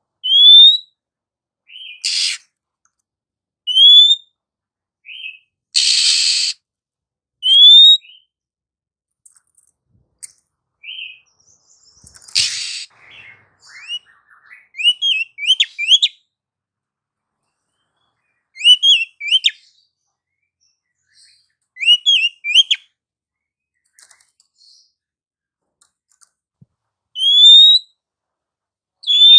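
Female Oriental magpie-robin calling: short clear whistles that sweep upward, some single and some in quick clusters of two or three, with loud harsh rasping notes between them and gaps of silence.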